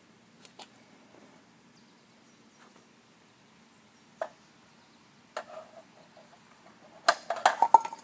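A few scattered sharp clicks and knocks, then a quick run of louder knocks and clatter near the end.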